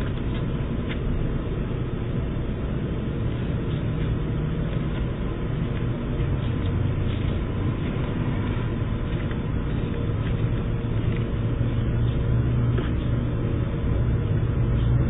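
Steady low outdoor rumble heard through a doorbell camera's narrow-band microphone, with a few faint ticks; it swells slightly near the end.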